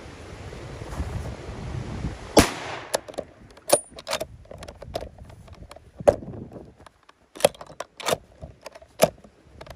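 A single loud rifle shot from a Browning in .300 Winchester Magnum, then a string of sharp, irregularly spaced metallic clicks and clacks as the jammed rifle's action is worked.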